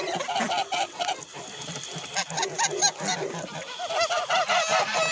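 A flock of domestic geese of the Tula fighting and Gorky breeds honking, short calls following one another in quick series, with a quieter stretch in the middle.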